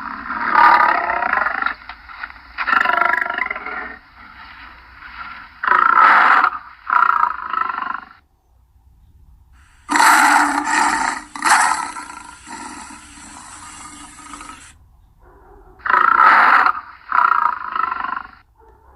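Lion roaring: a series of loud, deep calls, mostly in pairs, separated by short pauses.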